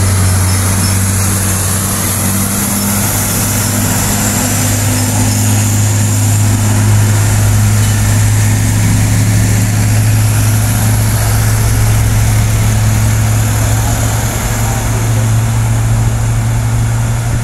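Heavy diesel truck engines running under load on a climb, one truck passing and another following: a steady, loud deep drone.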